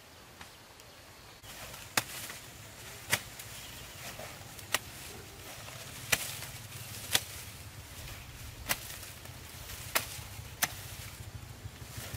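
A hand tool chopping: about eight sharp, irregular strikes, roughly one a second, starting about two seconds in.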